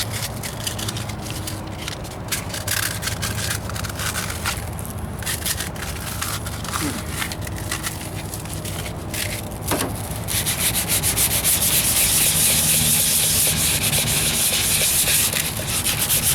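220-grit sandpaper rubbing over filler primer on a truck's wheel arch, wet sanded by hand with a soapy water solution. Broken, uneven strokes at first; about ten seconds in it turns to steady, louder back-and-forth sanding.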